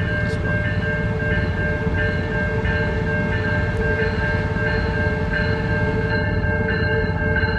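Passenger train's bell ringing steadily, about one and a half strikes a second, over the low rumble of the train pulling into the station.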